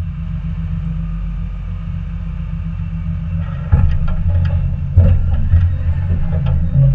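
Tractor diesel engine running steadily with a low rumble, with two heavy clunks about four and five seconds in.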